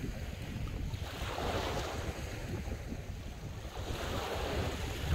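Small waves breaking and washing up the shore, surging twice, about a second in and again near the end. Wind buffets the microphone throughout with a low rumble.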